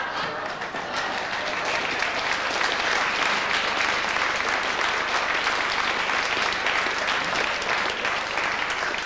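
Live audience applauding steadily, many hands clapping together, in reaction to a comedian's punchline.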